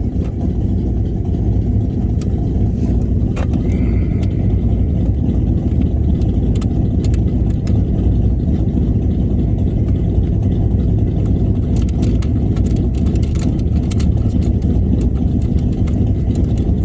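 Car engine idling steadily with a loud, even low rumble, with a few faint clicks on top.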